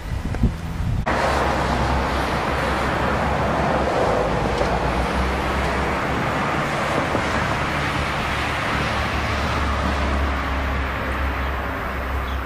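Steady outdoor noise, a low rumble under an even hiss, starting abruptly about a second in and holding level after that, of the kind heard from road traffic.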